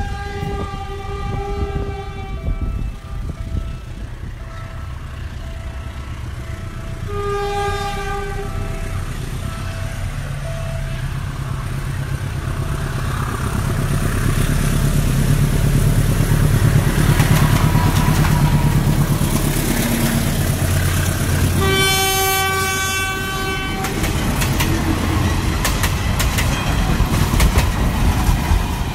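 Diesel locomotive horn sounding a held chord three times: at the start, about seven seconds in and about twenty-two seconds in. Between the blasts the locomotive's engine rumble grows louder as the train draws near, and near the end there is a rapid clatter of wheels over the rails.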